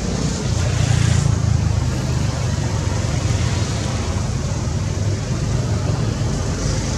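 A steady low engine rumble, with a hiss above it that grows brighter for a moment about a second in.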